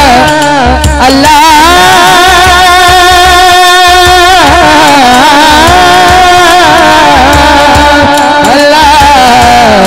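A male naat reciter singing a devotional kalam through a microphone and sound system, holding long, wavering melodic notes that glide from pitch to pitch, with a low repeating pulse beneath.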